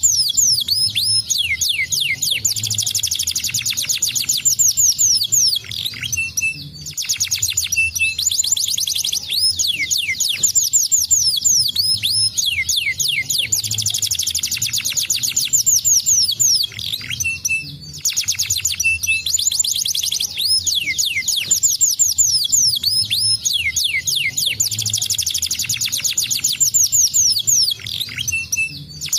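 Domestic canary singing a long, fast song of rapid trills made of repeated sweeping notes. The song breaks off briefly three times: about six seconds in, around eighteen seconds, and near the end.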